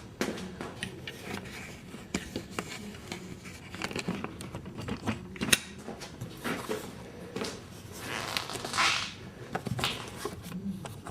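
Irregular clicks, light knocks and rustling of hands working old drive belts off the pulleys under a pottery wheel, with a longer scraping rustle about nine seconds in.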